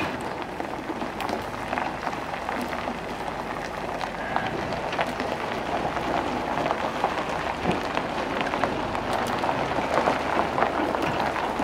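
Steady crunching of gravel, a dense crackle of many small clicks.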